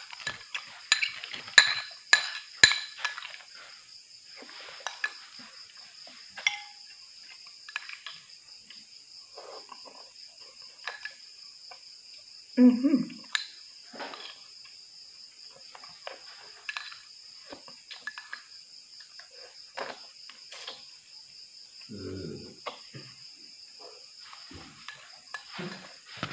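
A metal spoon clinks against a ceramic soup bowl, several sharp taps in the first few seconds and more scattered later, with eating sounds from the bowl around the middle. A steady high insect chorus runs underneath.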